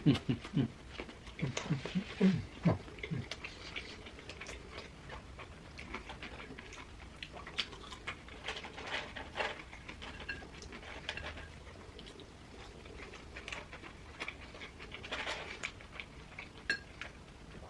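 Close-miked eating sounds: chewing with small wet clicks, crackles and rustles scattered throughout. In the first few seconds there are a few short, low grunting throat noises.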